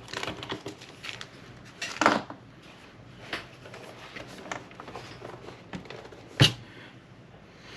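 Handling clicks and knocks from working on a cassette recorder's plastic case and parts by hand, scattered irregularly, with a louder knock about two seconds in and a sharp click near the end.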